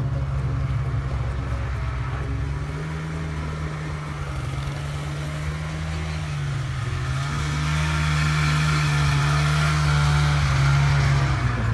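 Small snowmobile engine running steadily, its pitch shifting slightly up and down, growing louder and brighter about two-thirds of the way in.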